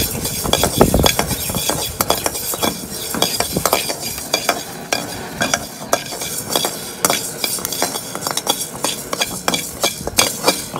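Perforated metal ladle stirring and scraping fenugreek seeds around a hot metal kadai as they roast, with irregular scrapes and clinks of metal on metal.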